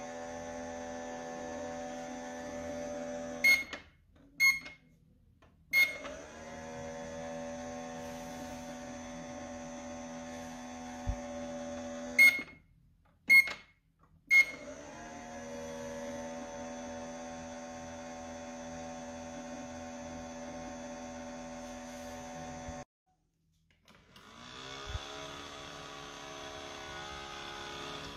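Toy microwave oven running with a steady motor hum that stops twice, each time with three short high beeps from its buttons, then starts again. Near the end a toy blender's motor starts up and rises in pitch.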